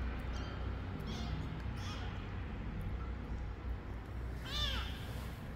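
Very young tabby kitten mewing: a few faint, short, high mews early on, then one louder mew that rises and falls in pitch near the end.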